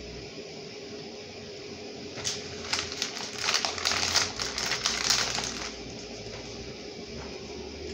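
Plastic food packaging crinkling as it is handled, a dense crackle of about three and a half seconds starting around two seconds in, over a steady low hum.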